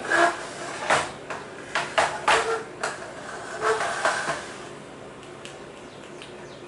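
Green plastic Operation game tray knocking and clattering as it is slid and turned on a wooden table, several sharp knocks over the first four seconds or so, then quiet room noise.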